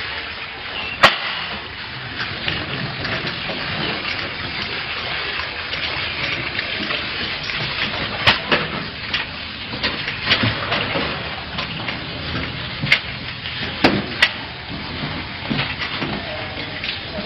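Steady rushing and splashing water, broken by a few sharp knocks: one about a second in and a quick cluster of three later on.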